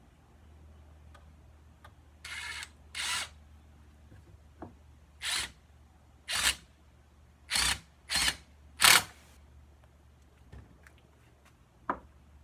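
Cordless power driver running in seven short bursts, driving 1.5-inch screws into the wooden armrest of a Muskoka chair; the last burst is the loudest.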